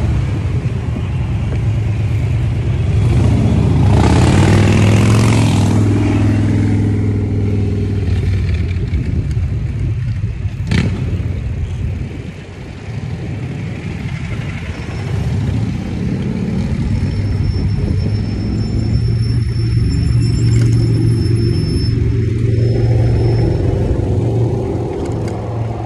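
Loud, steady low rumble of wind and road noise while riding a bicycle through traffic. A motor vehicle goes by about four seconds in, its engine note falling as it passes, and there is a single sharp click near the middle.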